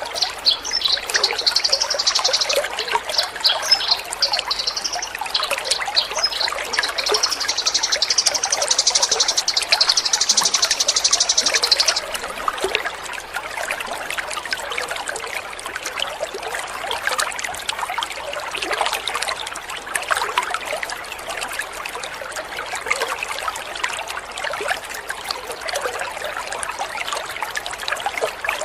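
Water trickling and splashing steadily. For about the first twelve seconds a high, rapid trill sounds over it, then stops.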